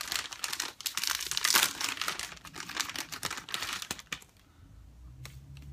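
Clear plastic bag crinkling and rustling as hands work it open to pull out the hair inside. It goes on for about four seconds, loudest about a second and a half in, then stops.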